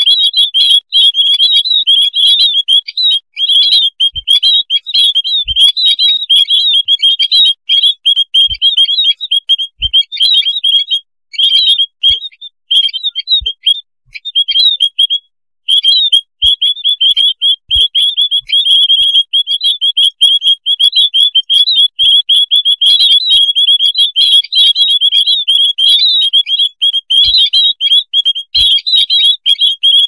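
A noisy flock of white-headed munias chirping: many rapid, high calls overlapping almost without pause, broken once by a short lull about halfway through.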